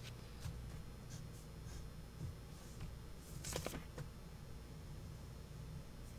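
Pen drawing on paper: a few faint short strokes, the loudest a longer stroke about halfway through.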